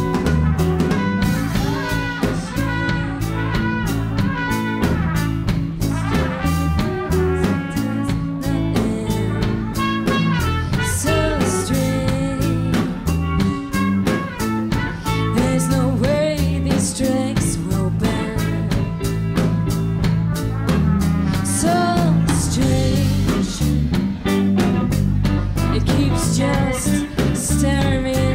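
Live band playing a song: hollow-body electric guitar, electric bass and drum kit with a steady beat, and a woman singing.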